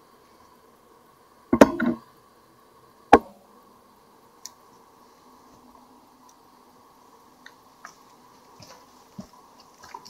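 A quick cluster of sharp knocks about a second and a half in, then a single loud click, followed by faint scattered ticks over a low steady hum.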